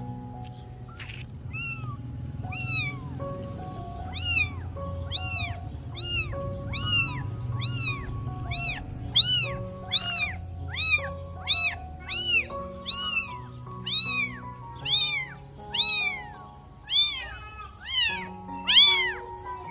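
Very young tabby kitten meowing over and over, about one and a half short rising-and-falling meows a second, growing louder after the first few seconds.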